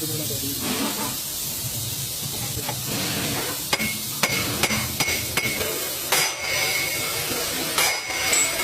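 Metal being struck with a hammer: five sharp blows about two a second, each with a brief metallic ring, then two heavier knocks, over a steady hiss.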